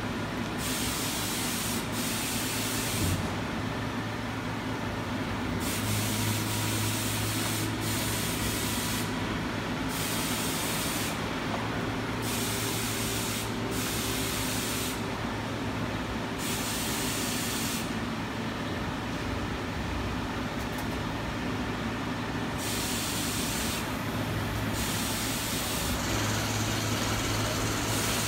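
Steady hum of nearby machinery, with a loud hiss like spraying that cuts in and out sharply every second or few.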